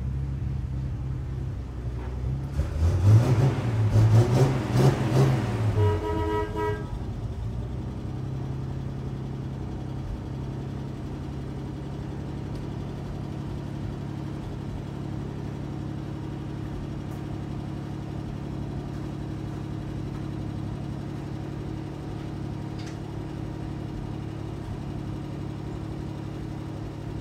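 1946 Dodge Power Wagon's flathead six-cylinder engine, freshly tuned up with new points, condenser, cap, rotor and plugs. It revs up about three seconds in, gives a brief higher-pitched note near six seconds, and then settles into a steady idle.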